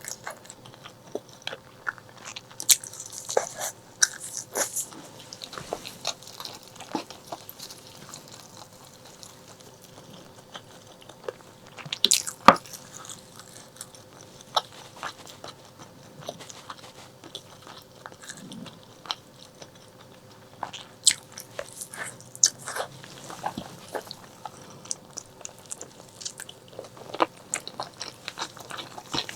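Close-miked eating of braised pork leg: chewing and biting with irregular wet clicks and smacks, the loudest about twelve seconds in.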